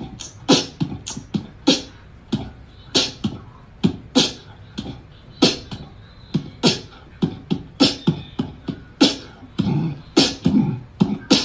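Beatboxing: a loose beat of mouth-made kick and snare sounds, about two strokes a second.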